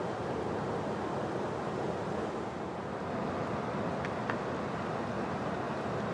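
Steady rushing of a flowing river, an even constant noise, with a couple of faint ticks about four seconds in.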